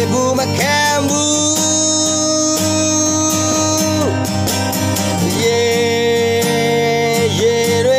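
A singer holding long, scooping melody notes while strumming an acoustic guitar.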